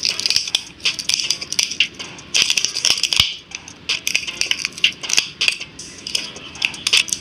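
Dense, irregular crackling and clicking from hand work on a phone: small hard tools scraping and prying at the handset, with a sharper knock about three seconds in.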